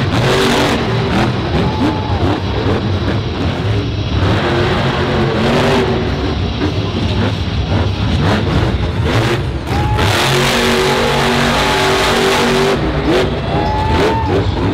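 Max-D monster truck's supercharged V8 revving hard and easing off again and again as it drives the course. About ten seconds in, it holds high revs for a couple of seconds before dropping back.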